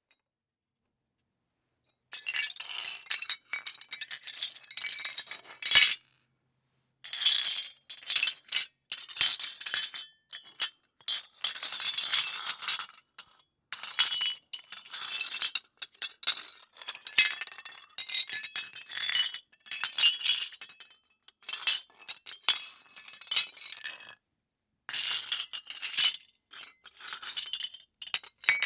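Foley of rubble breaking: brittle hard fragments crunching and clinking against each other in uneven bursts. It starts about two seconds in and pauses briefly twice.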